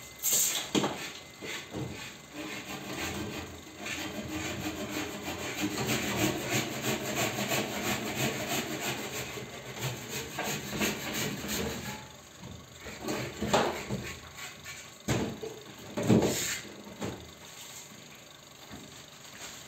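Hand saw cutting through a long white trim strip with quick back-and-forth strokes for about the first twelve seconds, then a few separate knocks as the cut pieces are handled and set down.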